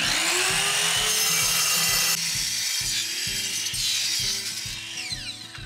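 Ryobi compound miter saw with a 7-inch diamond-tip masonry blade starting up and cutting through a manufactured concrete stone panel, a loud grinding whine that rises in pitch as the motor spins up. About five seconds in the motor is released and winds down with a falling whine.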